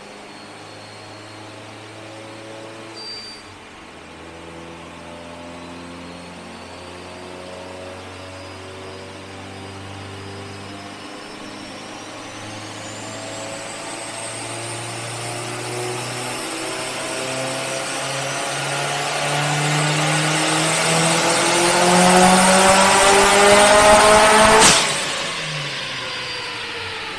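Turbocharged Subaru STi flat-four with a GTX3576R turbo on a chassis dyno. It runs up in steps, then makes a long full-throttle pull with the pitch rising steadily and a high turbo whistle climbing alongside, getting louder to its peak. About 25 seconds in, the throttle closes with a sharp burst, and the engine and rollers wind down.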